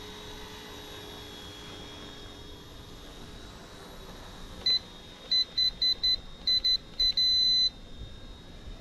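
A quick run of about ten short electronic beeps, ending in one longer beep, from a small electronic beeper such as the RC transmitter's. Under them, a faint steady high whine, typical of the small electric RC helicopter hovering.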